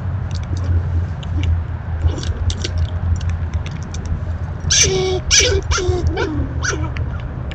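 Backyard outdoor sound: a steady low hum with many small scattered clicks and taps, and a cluster of short pitched animal calls about five seconds in.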